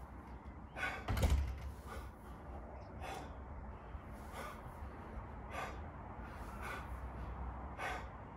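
A man breathing out sharply with each rep of single-arm dumbbell snatches, a short burst of breath about once a second. There is a low thump about a second in.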